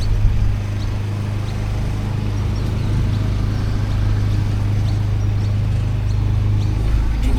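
Boat motor running steadily, a constant low hum that holds the same pitch throughout.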